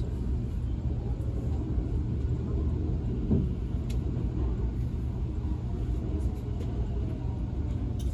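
Nankai 50000-series train running on the line: a steady low rumble of wheels on rail, with a few faint clicks.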